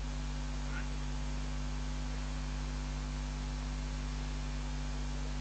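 Steady electrical mains hum, a low buzz with a few fixed tones, over a constant hiss from the live-commentary sound system.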